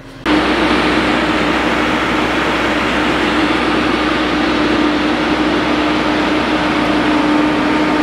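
Sakai single-drum sheepsfoot vibratory roller's diesel engine running steadily. It comes in suddenly just after the start, with a constant hum over the engine noise.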